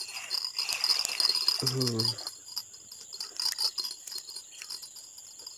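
Fishing reel clicking rapidly as a hooked fish is reeled in, the ticks thinning out after about two seconds, over a steady high drone of insects. A short voice sounds about two seconds in.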